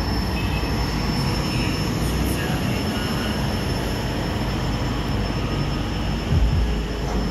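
Loud bass-heavy playback through a car's aftermarket Infinity 1200 W 12-inch subwoofer, heard from outside the car as a dense, noisy rumble, with heavier bass hits about six seconds in.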